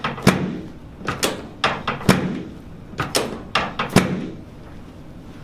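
A quick run of sharp thuds and knocks on a chiropractic treatment table as the patient's middle back is worked, about eight in four seconds, then stopping.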